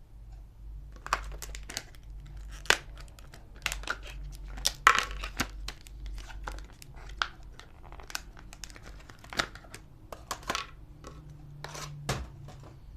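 Packaging of a voltage detector being handled and opened: irregular crinkling and tearing with many sharp crackles and clicks, over a steady low hum.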